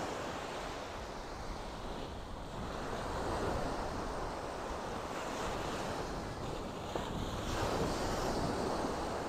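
Small sea waves breaking on a sandy beach and washing up the shore, the surf swelling louder twice.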